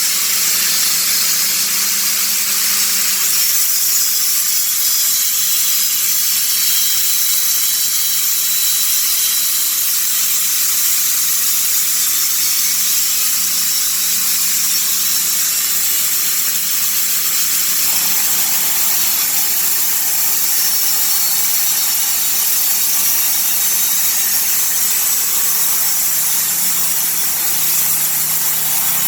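Honda-engined Dack SMP 13/85 sawmill running under load as its blade cuts through a log. The sound is a loud, steady high hiss and whine that changes slightly about two-thirds of the way through.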